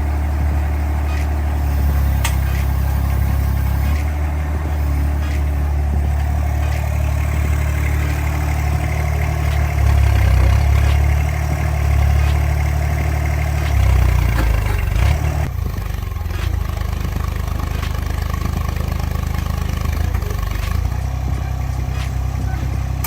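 20DS mini excavator's diesel engine running, its note shifting and briefly louder several times partway through as the hydraulics take load.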